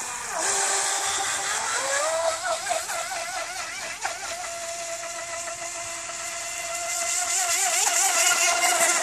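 Electric motor of a radio-controlled speedboat whining, rising in pitch over the first two seconds as the boat accelerates, then holding a high, slightly wavering whine at speed over a steady hiss. It grows louder near the end as the boat turns.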